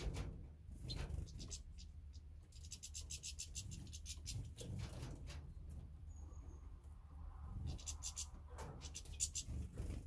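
Small songbirds such as finches and canaries calling. There are rapid runs of sharp, high ticking calls at about eight a second, around 3 s in and again near 8 s, and one short high whistled note about 6 s in, over scattered soft knocks.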